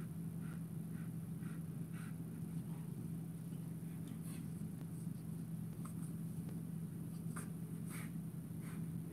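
Bernese mountain dog chewing and gnawing on a toy: a string of small soft clicks, about two a second at first, with a few sharper ones in the second half. A steady low hum runs underneath.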